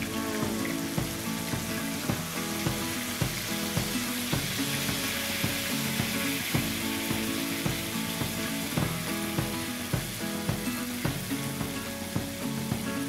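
Ground spice paste sizzling as it drops into hot coconut oil in a ceramic wok, with a spoon scraping it out of a blender jar, over background music.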